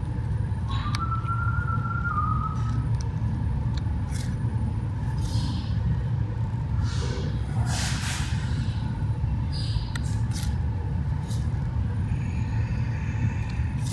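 A steady low hum with faint scattered clicks and scratches over it, as a sharp X-Acto knife cuts and works the leather covering into a screw hole of a rubber shotgun recoil pad.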